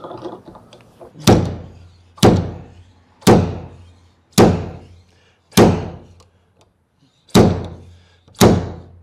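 Slide hammer pulling a glue tab on a dented car door: the sliding weight is yanked back against its stop seven times, roughly once a second, each a sharp metallic knock that fades quickly, drawing out a creased dent.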